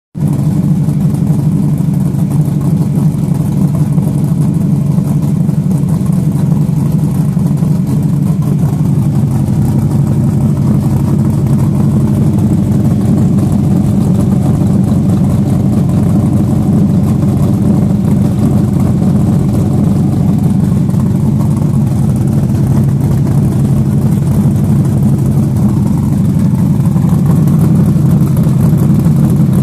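Chevy Nova's big-block V8 idling steadily through a 3-inch Wicked Flow muffler exhaust with an H-pipe, a low, even exhaust note that grows slightly louder near the end.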